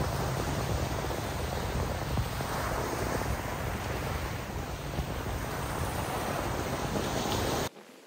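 Steady wash of small waves breaking on a sandy beach, mixed with wind rumbling on the microphone; it cuts off abruptly near the end.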